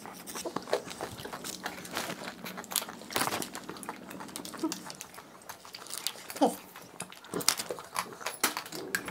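Close-up eating sounds of ice cream: scattered wet mouth clicks, licking and chewing, with small crunches of a wafer cone.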